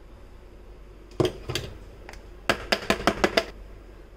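Spatula and steel mixing bowl knocking together as the last cake batter is scraped out into an aluminium cake tin: a sharp knock about a second in, then a quick run of about seven light knocks.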